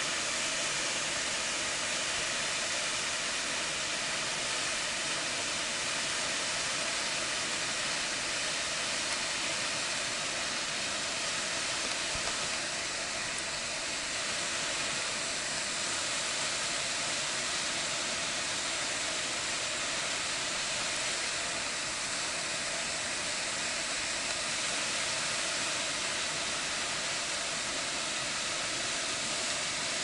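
Waterfall falling down a rock face: a steady, hissing rush of water and spray.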